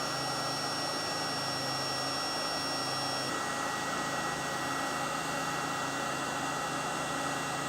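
Looft Lighter electric charcoal lighter running, its fan blowing hot air at the coals: a steady blowing hiss with a low hum, and a faint high whine that drops out about three seconds in.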